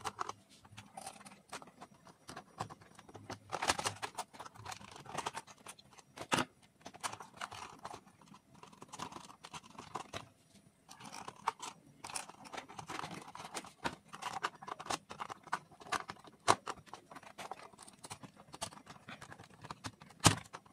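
Hands working copper wire on a plastic switch board: irregular small clicks, scrapes and rustles as the phase wire is looped onto the switch terminals, with a few sharper clicks.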